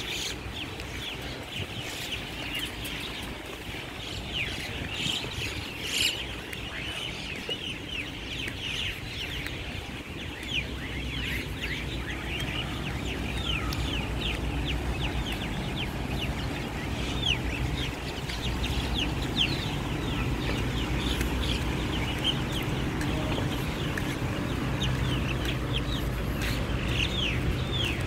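A dense chorus of many birds chirping from trees, short quick falling chirps overlapping without a break. A steady low hum grows in under them about halfway through.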